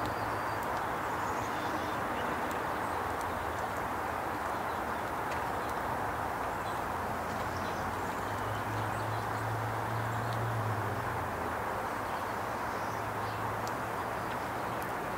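Steady outdoor background rush with a low drone that swells a little past the middle, and a few faint, high bird chirps and ticks over it.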